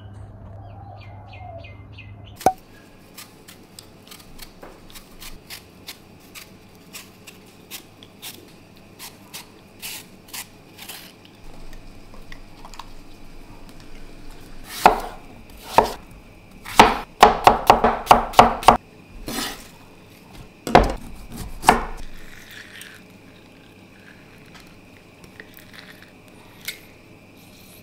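Knife chopping on a wooden cutting board, with steady strokes about twice a second, then a run of louder, quicker knocks partway through.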